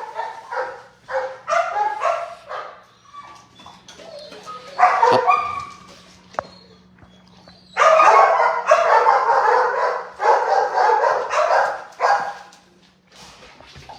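Dogs barking and yipping in short calls, loudest in a run of barks from about eight to twelve seconds in.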